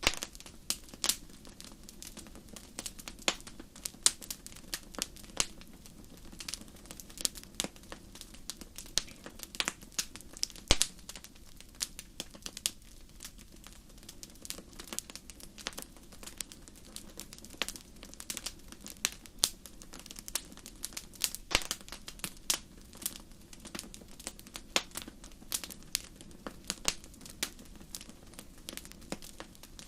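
A fireplace fire crackling, with sharp pops at an irregular, uneven pace over a steady low rush of flames.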